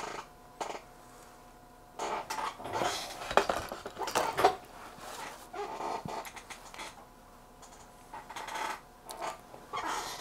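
Clatter and rustling of things handled on a workbench as a spiral-bound notebook is moved into place. The sounds come in irregular clusters of clicks and scrapes, starting about two seconds in.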